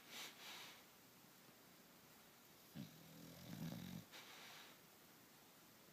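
English Bulldog snoring in its sleep: a soft hissing breath just after the start, a low snore for about a second starting near three seconds in, then another hissing breath.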